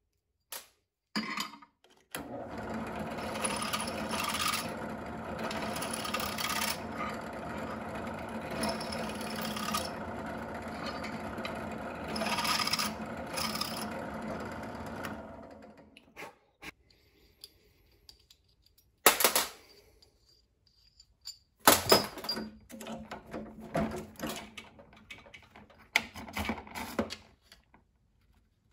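Benchtop drill press starting about two seconds in and running steadily for some thirteen seconds, a small part held up to the bit, with a few brief louder scraping moments, then winding down. After it, a scattering of sharp clicks and metal clatters from parts and tools being handled at the press.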